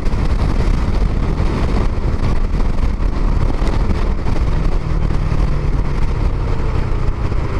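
Wind noise on the microphone while riding a Bajaj Dominar 400 motorcycle at highway speed, with the bike's single-cylinder engine running steadily underneath.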